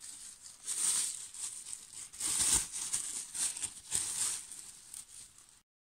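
Cellophane sheet being handled and folded over wet wool, crinkling in several irregular bursts. It cuts off abruptly near the end.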